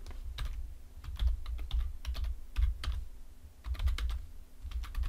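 Typing on a computer keyboard: irregular keystrokes coming in short runs with brief pauses between.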